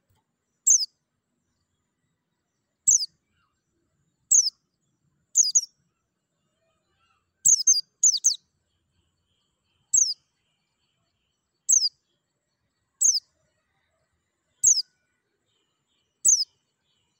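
A caged pleci (white-eye) giving short, high, downward-sliding chirps, about ten in all, some single and some in quick runs of two or three, spaced a second or two apart.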